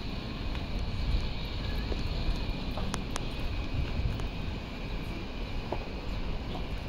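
Steady low rumble of outdoor city ambience, with a few faint clicks.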